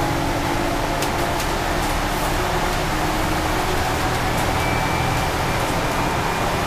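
Steady interior noise on the upper deck of an Alexander Dennis Enviro 500 double-decker bus cruising on a highway: an even rush of road and wind noise over a low engine hum.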